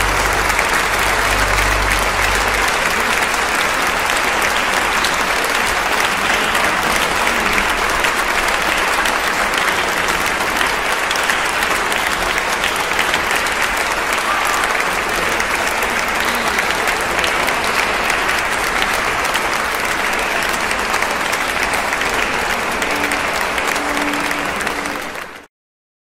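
Audience applauding steadily, with a last low note of the music dying away about two seconds in; the applause cuts off abruptly near the end.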